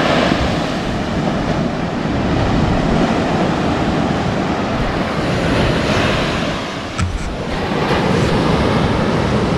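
Small, calm ocean surf breaking and washing up the beach, with wind rumbling on the microphone; a single sharp click about seven seconds in.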